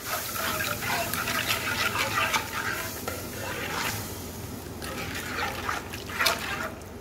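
A metal spoon stirring thin spiced liquid in a metal pot: the liquid swishes and sloshes, with the spoon clicking and scraping against the pot, and a louder cluster of clatter near the end.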